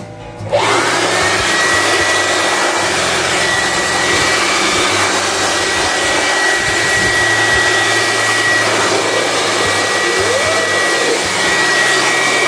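Handheld electric blower switched on about half a second in. Its motor whine rises quickly to a steady high pitch over a loud rush of air as it blows dust out of an open desktop computer case.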